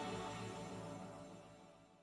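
Background music fading out steadily to silence.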